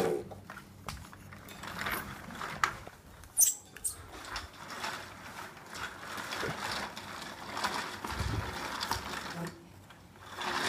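Plastic baby walker rolling over a tiled floor on its small wheels, its frame and tray rattling, with a few sharp plastic clicks and knocks. The rattle is densest in the middle stretch.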